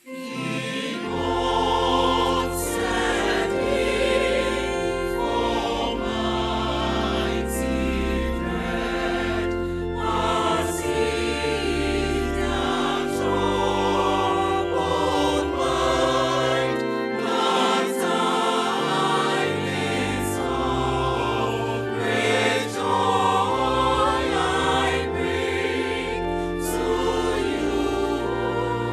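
Gospel choir singing in parts over an instrumental backing with a bass line, starting right at the beginning after a brief silence.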